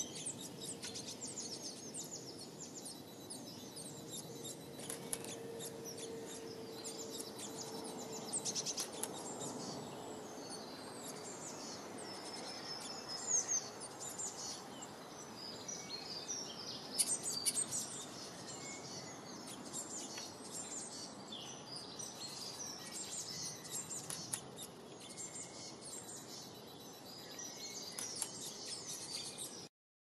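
Small songbirds chirping and twittering, many short high calls following one another in quick succession over a steady background hiss.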